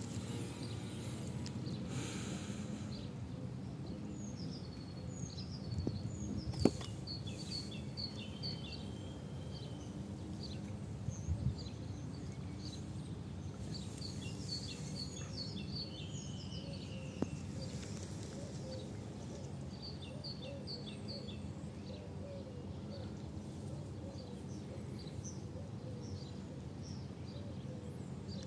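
A small songbird sings in repeated runs of quick, high chirps over a steady low outdoor background rumble. A few short sharp clicks sound along the way.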